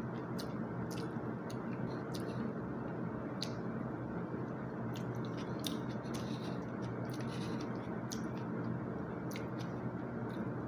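Someone eating: irregular light clicks of a plastic spoon and fork against a plastic meal tray, with chewing, over a steady background noise.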